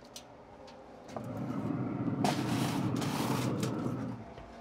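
A low rumble lasting about three seconds, with brief metallic handling noises over it as a foil-covered aluminium pan is put back into a pellet grill.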